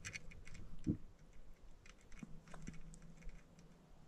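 Faint, scattered small clicks and ticks, with one dull thump about a second in, over a faint steady low hum.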